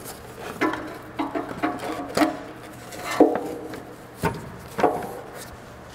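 Metal knocks and clunks, some with a short ring, as a Toyota Camry's front engine mount is turned and worked against the surrounding metal to get it out of the engine bay. About seven knocks, the loudest a little past three seconds in.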